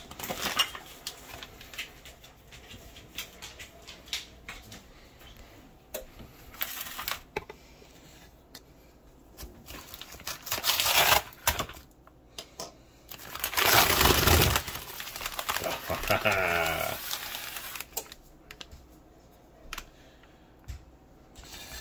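Brown kraft packing paper rustling, crinkling and tearing as a package is unwrapped by hand, with loud bursts of crumpling about halfway through. About two-thirds of the way in, a brief pitched vocal sound.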